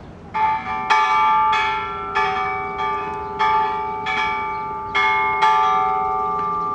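Tuned chime bells playing a slow melody: about nine strikes a little over half a second apart, starting a moment in. Each note rings on into the next and fades out near the end.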